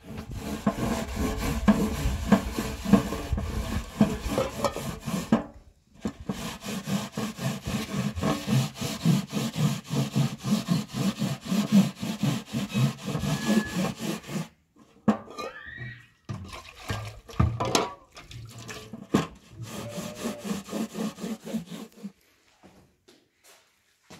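A domed metal bread griddle (saj) being scrubbed by hand on bare ground: fast, continuous rasping strokes in two long runs, with a brief pause between them. The strokes turn sparser and more broken for the last several seconds.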